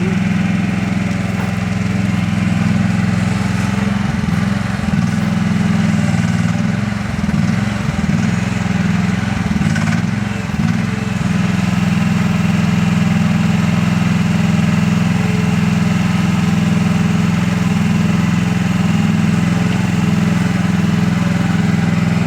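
Mini excavator engine running steadily, its note wavering and dipping a few times in the first half before settling again.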